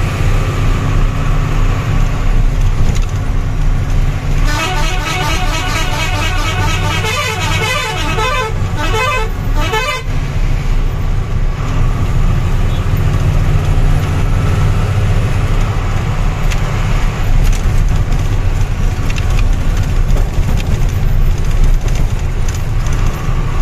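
Heavy truck's diesel engine and road noise heard from inside the cab while driving. About four and a half seconds in, a vehicle horn sounds a rapid, pulsing multi-note tune for about five seconds.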